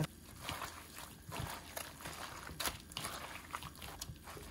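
Wet squishing and rustling of seasoned gamtae seaweed being squeezed and kneaded by hand in a plastic bowl, in irregular soft squelches.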